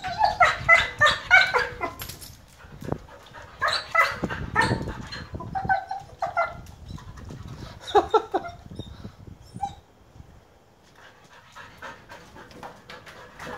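Siberian husky yipping and whining in short bursts, several clusters of calls over the first eight seconds or so, then quieter near the end.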